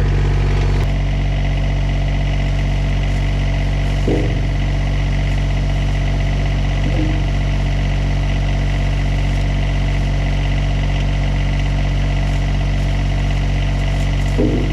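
LS tractor's diesel engine idling steadily, with a few brief knocks over it.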